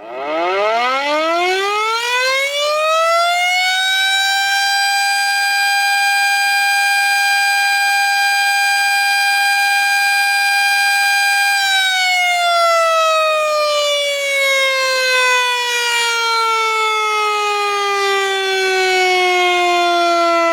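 Air-raid-style outdoor warning siren winding up from a low pitch to one steady wail over about four seconds. It holds that pitch, then slowly winds down from about twelve seconds in.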